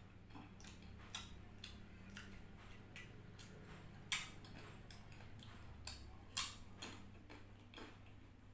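Close-up eating sounds: a string of soft, wet mouth clicks while chewing, with two sharper, louder clicks about four and six seconds in.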